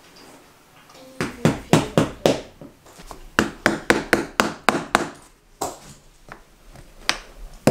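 A quick series of sharp knocks in bursts of about three to four a second, starting about a second in: click-lock vinyl floor planks being tapped into place.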